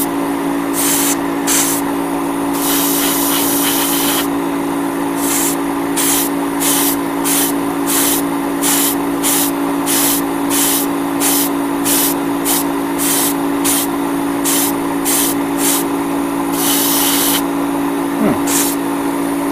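Iwata Neo airbrush spraying thinned paint in many short bursts, about one or two a second, with two longer sprays about three seconds in and near the end. A steady motor hum runs underneath.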